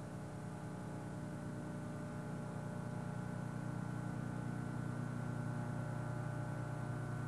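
Steady mechanical drone of carrier flight-deck noise with several held tones under a light hiss, slowly growing a little louder.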